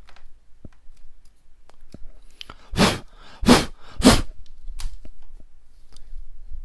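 Three short puffs of breath blown across a washing-machine circuit board, about half a second apart, to clear away debris from prying out a cracked triac. Faint scratching clicks from a wooden pick working on the board come and go around them.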